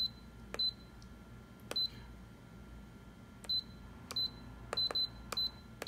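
Canon imageRUNNER ADVANCE C5240 touchscreen giving a short high key-press beep with each stylus tap on its on-screen keyboard. About nine tap-and-beeps, a few per second, with a pause of about a second and a half near the middle.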